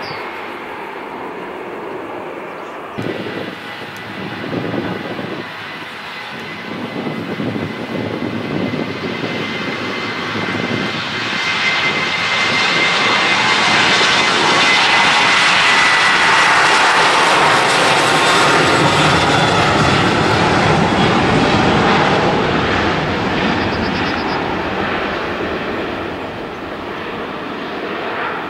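Boeing 737-700 twin-jet (a US Navy C-40A) on its takeoff roll at takeoff power, its turbofans giving a broad jet noise with a steady high whine. The sound swells as it passes, is loudest about halfway through, then fades as it lifts off. About three seconds in, the sound changes abruptly from the tail end of another jet's departure.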